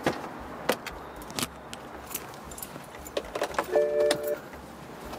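Sharp clicks, knocks and a metallic jingle as things are handled in and around a car, its trunk and door open. A brief steady electronic tone sounds about four seconds in.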